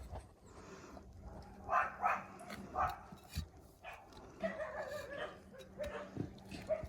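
A dog barking: three short barks about two to three seconds in, then softer whining calls.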